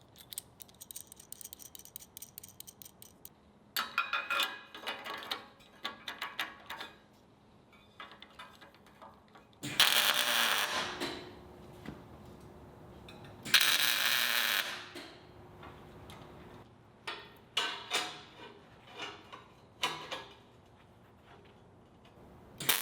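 Metal parts being worked and handled, with scattered clicks and clatter. Two short, loud hissing bursts come about ten and fourteen seconds in.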